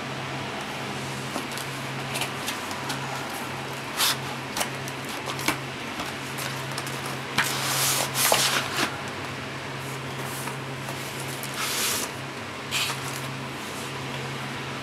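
Cardboard and plastic packaging being handled as the insert and end caps are slid out of a hard drive's box: scraping and rustling in several short bursts, the longest about halfway through. A steady low hum runs underneath.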